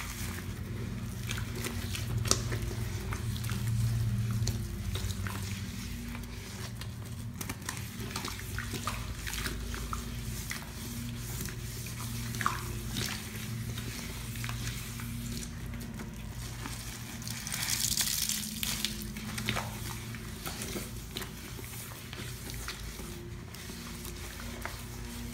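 Rubber-gloved hands scrubbing a sink basin through thick wet Comet cleanser paste: a run of wet squishing and scratchy swishes, with one louder swish about three-quarters of the way through. A low steady hum runs underneath.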